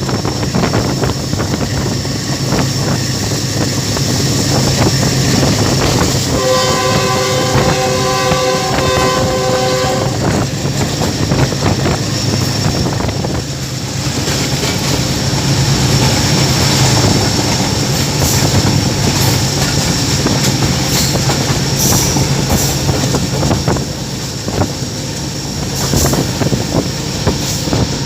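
GE U20C (GEU 20) diesel-electric locomotive hauling a train at speed, its engine making a steady low drone over the rumble of the wheels on the rails. Its multi-tone horn sounds about six seconds in and holds for about four seconds. In the second half, sharp clicks of the wheels passing over rail joints come through the running noise.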